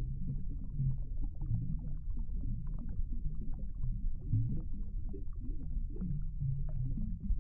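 Underwater ambience: a steady low rumble with faint scattered clicks and ticks.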